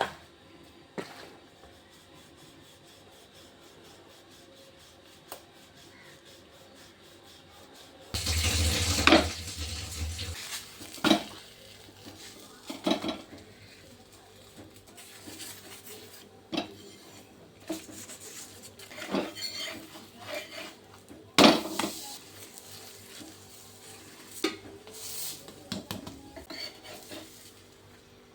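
Utensils clinking and scraping against a bowl during stirring, in scattered knocks, with a louder clatter about eight seconds in.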